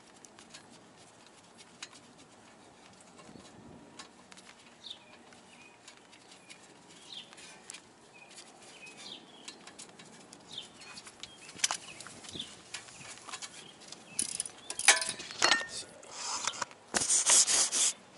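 Faint clicks and ticks of hand tools as the brake line bracket bolts are fitted to a car's front spindle, with birds calling faintly now and then. In the last few seconds there is loud rustling and knocking as the phone camera is picked up and handled.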